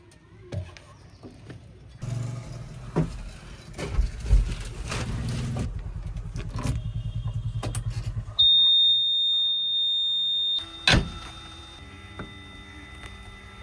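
Backhoe loader's diesel engine running with a low throb and several knocks. It is followed by a loud, steady, high-pitched beep lasting about two seconds, and then a sharp knock.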